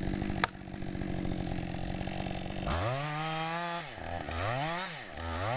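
Chainsaw running at idle with a sharp knock about half a second in, then revved three times from about halfway through, each rev rising in pitch and dropping back.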